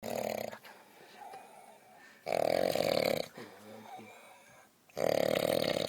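A person snoring loudly: three heavy snores, each about a second long, coming roughly every two and a half seconds.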